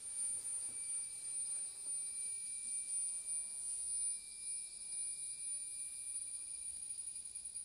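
Steady high-pitched insect drone from the surrounding trees, several thin tones held at once without a break; no instrument is playing yet.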